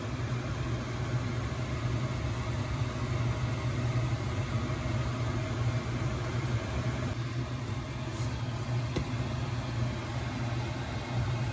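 Pot of brown beans boiling on a glass-top electric stove, heard as a steady low hum under an even hiss, with a faint tick or two near the end.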